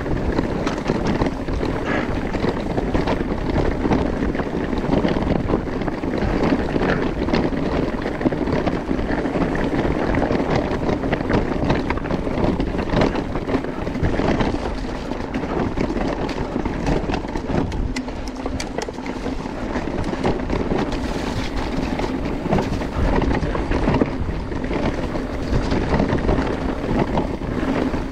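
Mountain bike ridden over a rough, stony trail: tyres rumbling and the bike rattling with constant small knocks, with wind rushing on the camera microphone.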